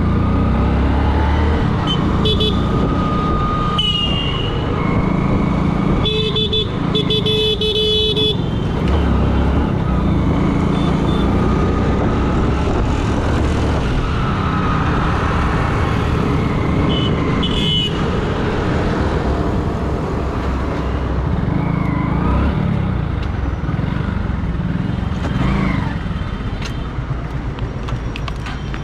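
Hero Glamour 125 cc single-cylinder four-stroke motorcycle engine running under way in traffic. Vehicle horns honk repeatedly about six to eight seconds in and once more near eighteen seconds. Near the end the bike slows to a stop.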